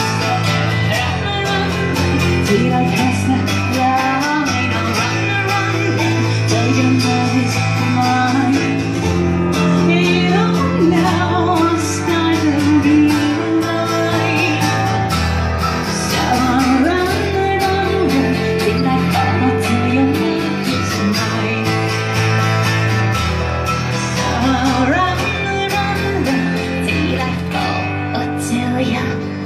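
A live band playing a song: strummed acoustic guitar, keyboard and drums, with a sung vocal line over held bass notes that change every couple of seconds.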